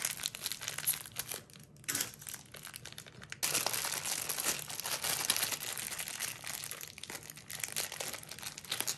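Thin plastic bags crinkling and rustling as hands handle and unwrap small hoop parts from them. There is a brief lull about a second and a half in, and the crinkling is louder from about three and a half seconds.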